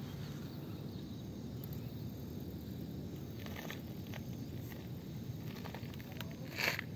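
Steady low outdoor rumble with no clear source, broken by a few faint clicks and one sharper tick near the end.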